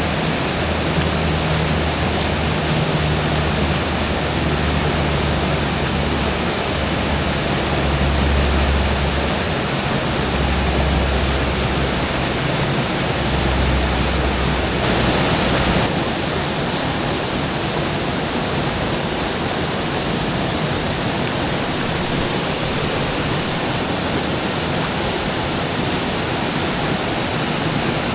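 Rushing mountain stream water, a loud steady hiss, with a low rumble in the first half that stops abruptly about halfway through.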